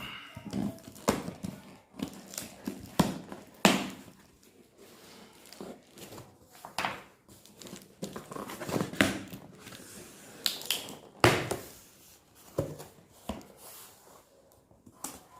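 Packaging being handled and opened by hand: irregular crinkling, tearing and rustling with scattered sharp knocks.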